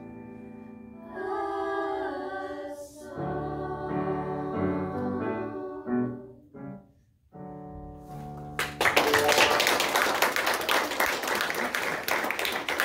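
Girls' treble ensemble singing in harmony with piano accompaniment. The song ends about seven seconds in on a held piano chord, and then the audience applauds.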